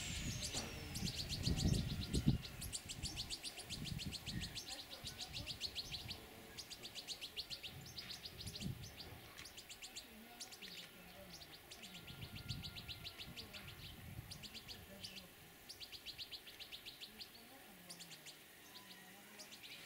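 European greenfinch singing: runs of rapid trilled twittering, repeated in stretches of a few seconds with short breaks.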